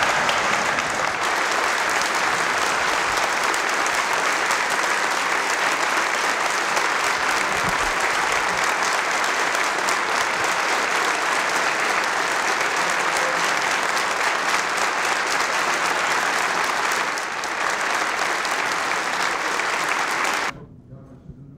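A large crowd giving a standing ovation: steady, dense applause that cuts off suddenly near the end.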